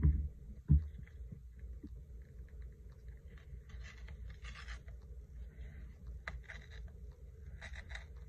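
Two dull thumps on the work table in the first second, then soft bursts of paper rustling as torn collage paper is handled, over a low steady hum.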